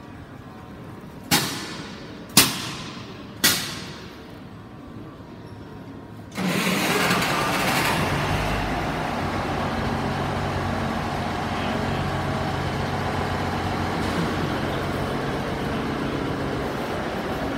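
Three sharp bangs about a second apart, then about six seconds in an East Midlands Trains diesel multiple unit's engine starts up suddenly and runs steadily at idle.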